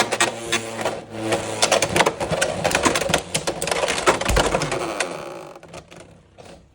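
Two Beyblade X spinning tops battling in a plastic stadium: a rapid, uneven clatter of collisions and clicks over a steady scraping of the spinning tips, with one heavy knock about four seconds in. The clatter dies away after about five seconds as the tops stop.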